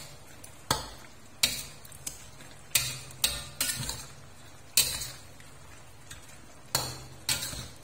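A spatula scraping and knocking against a stainless-steel wok while stirring pork in a thickening soy-sauce braise: about ten sharp strokes at uneven intervals, with a pause of about two seconds past the middle.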